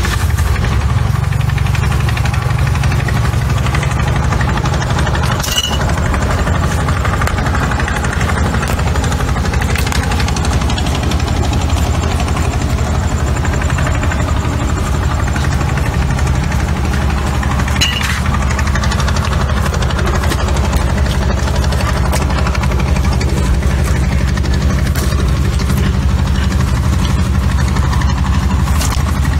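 A motor engine running steadily with an even low throb, with a few short knocks on top, one about five seconds in and one about eighteen seconds in.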